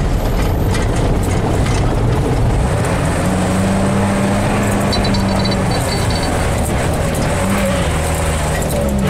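Vehicle engine and tyre noise heard from inside the cab while driving up a steep, ribbed concrete road. It is a steady rumble, with the engine's hum standing out for a couple of seconds in the middle.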